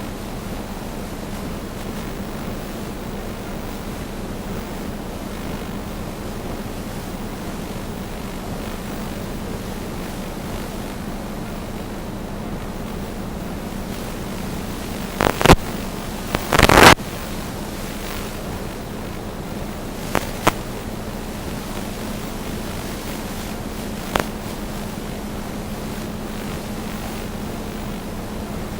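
Steady rush of wind on the microphone over a steady low hum, broken by several short, loud buffeting bursts, the strongest about halfway through.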